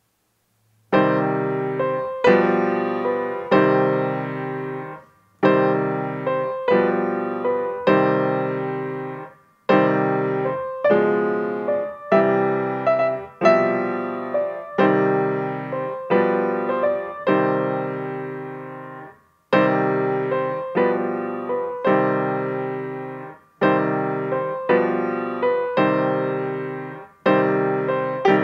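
Grand piano played solo, starting about a second in: chords struck one after another and left to ring and fade, in phrases with a few short pauses.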